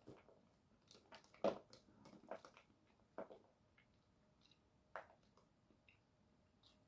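Near silence, with a few faint, short wet clicks of a mouth chewing, spread over the first five seconds.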